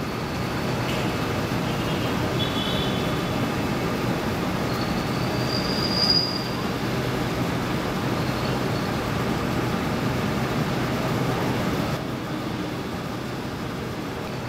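Steady city noise, a broad roar of traffic, with a few faint high-pitched squeals, the loudest about six seconds in.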